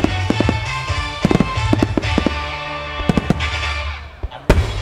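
Aerial firework shells bursting in a rapid run of cracks and booms over accompanying music with a steady bass. The bursts ease briefly, then one very loud crack comes near the end.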